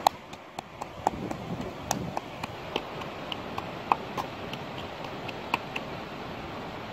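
Knife blade chopping chilies inside a coconut-shell bowl: irregular sharp clicks, about three a second, stopping near the end, over the steady rush of a stream.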